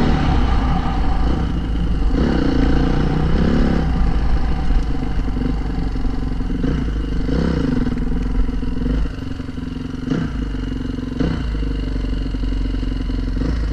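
Honda CRF450R dirt bike's single-cylinder four-stroke engine running as the bike is ridden, its pitch swelling up and back down twice with the throttle. It runs a little quieter from about nine seconds in.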